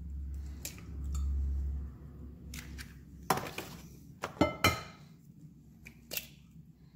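Eggs being cracked into a glass pie dish: a handful of sharp cracks and clinks of shell against glass, the loudest a little past the middle and one more near the end. A low rumble runs through the first two seconds.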